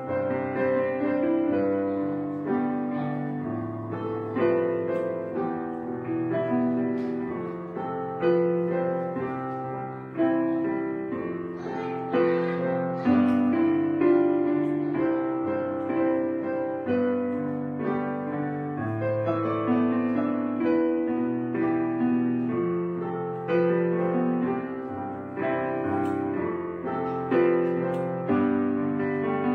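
Instrumental background music led by piano, chords and single notes struck one after another and left to ring.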